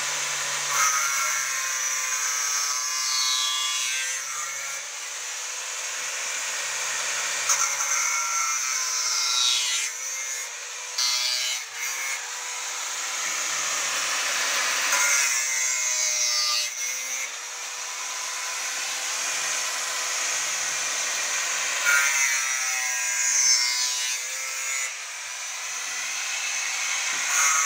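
Electric angle grinder running with its disc against the edge of a wooden boat plank. The motor's whine dips in pitch several times as the disc bites under load, then climbs back.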